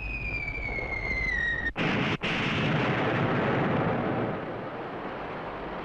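Vintage TV sound effects: a descending whistle for under two seconds, then a large explosion whose dense rumble carries on, easing slightly after about four seconds.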